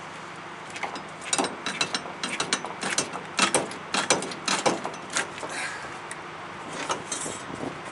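Hand ratchet wrench clicking in short irregular strokes, working a bolt on a truck cab shock absorber mount; the clicking starts about a second in and stops shortly before the end.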